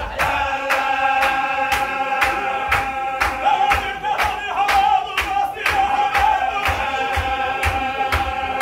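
Men's chorus chanting a Sufi Qadiri zikr in a sustained, held chord, over a steady beat of hand claps and stamping feet.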